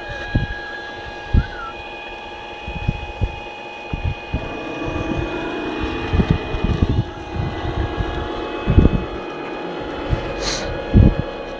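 Radio-controlled scale model Liebherr 944 excavator running: a steady mechanical whine whose pitch shifts in the middle as it swings and works its arm, with scattered low thumps.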